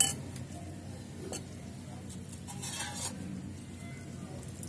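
A steel spoon stirring salted grated cabbage and carrot in a glass bowl: a sharp clink of spoon on glass at the start, a lighter clink a little over a second in, and a short rustling scrape of the wet shreds about two and a half seconds in.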